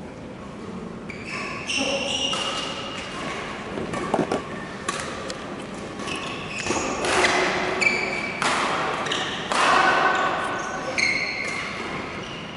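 Badminton singles rally: the shuttlecock is struck back and forth with sharp racket smacks, with short high squeaks of court shoes and footfalls on the hall floor.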